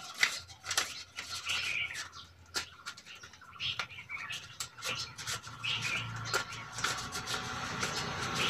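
A wad of banknotes being counted by hand, the notes flicked one after another in a run of short, crisp paper snaps and rustles. A few chirps sound in the background.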